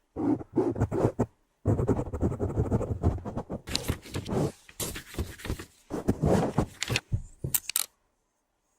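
Close-miked ASMR trigger sounds: loud, irregular scraping and rubbing right against the microphone, broken by brief silent gaps and stopping a little before the end.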